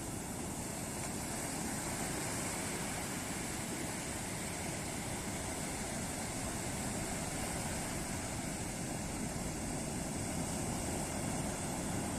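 Ocean waves breaking on a beach, heard as a steady, continuous wash of surf.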